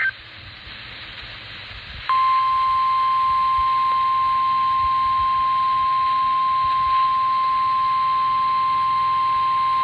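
Weather radio hiss, then about two seconds in a single steady 1050 Hz NOAA Weather Radio warning alarm tone starts and holds. The tone announces that a new weather warning follows.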